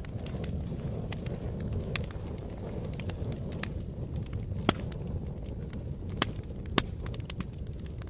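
Open fire burning: a steady low rush of flames with frequent crackles. Three louder, sharper pops come in the second half.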